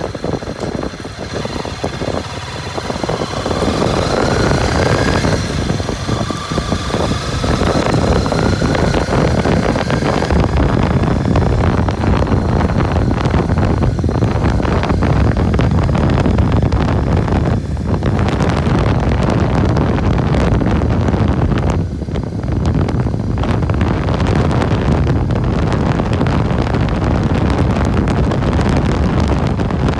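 Honda CB250R single-cylinder motorcycle riding in traffic, its engine pitch rising twice in the first ten seconds as it accelerates. Wind rumbles on the microphone, loudest after about ten seconds.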